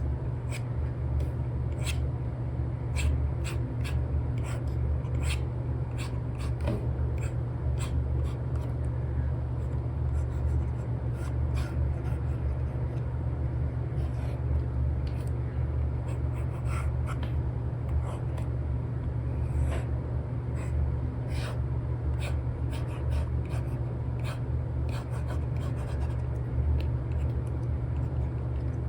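Apple Pencil with an Elecom paper-feel nib tapping and scratching on an iPad's paper-like screen protector while sketching: irregular light clicks and strokes over a steady low rumble.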